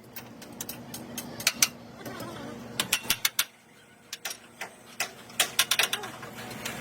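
Irregular sharp metallic clicks and clinks of hand tools working on metal truck parts, coming in small clusters.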